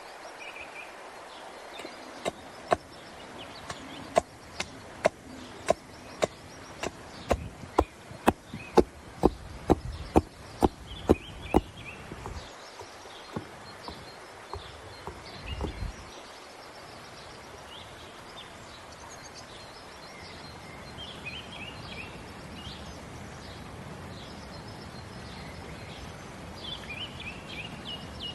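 A run of sharp knocks, about two a second, lasting roughly ten seconds, then birds chirping faintly over outdoor ambience.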